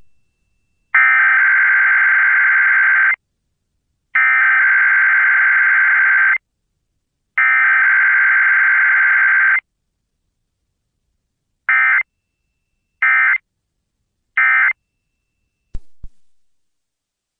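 Emergency Alert System SAME digital data tones for a Required Weekly Test: three header bursts of about two seconds each, then three short end-of-message bursts, a buzzing warble that the host calls annoying noises. Two sharp clicks follow near the end.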